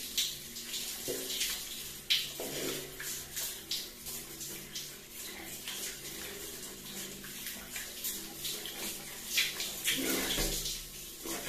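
Shower water spraying steadily from an overhead shower head and splashing irregularly on a person's head and skin as she rinses her hair and face.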